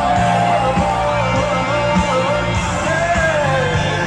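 Live band music through a concert PA heard from among the audience: a male singer carries a gliding melody over drums, guitars and keyboards.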